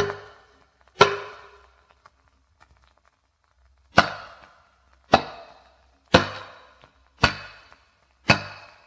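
Mammoth hip bone struck as a percussion instrument: sharp knocks, each ringing briefly. There are two strikes about a second apart, then after a pause of about three seconds five more at roughly one-second intervals.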